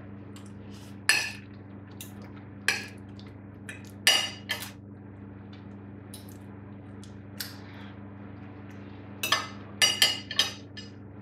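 Metal knife and fork clinking and scraping on a ceramic dinner plate as a fried egg is cut up. The strikes come singly every second or two, with a quick cluster near the end, over a steady low hum.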